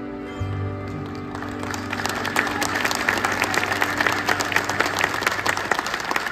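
The last chord of a choir song's accompaniment rings out with a low held note and fades, while audience applause starts about a second and a half in and builds.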